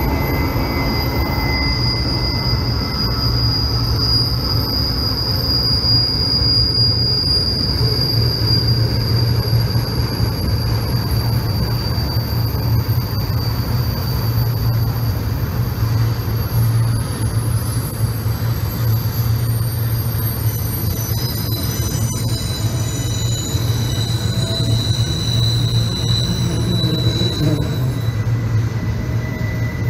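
Long freight train of autorack cars rolling through a tight curve, its wheels squealing in long, high, wavering tones over a steady low rumble.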